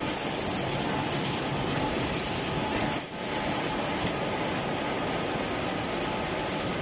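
Facial tissue bundling packing machine running with a steady mechanical clatter and hum, conveyor and pushers moving packs along. There is a brief louder click about three seconds in.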